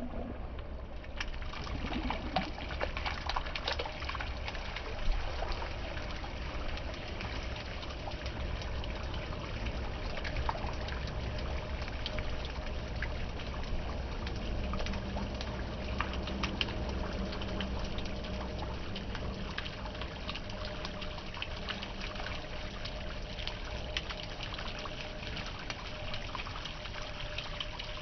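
Water jetting from the hose barb of an open ball valve and splashing onto paving stones: a steady rushing splatter that starts about a second in.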